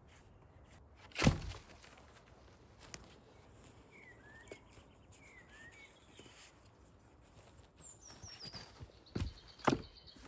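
A loud, sharp wooden thunk about a second in and two more in quick succession near the end, with songbirds chirping in between.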